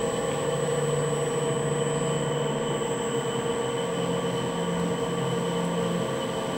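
Electric pottery wheel motor running with a steady hum and a faint high whine while wet clay is centered on the spinning wheel head.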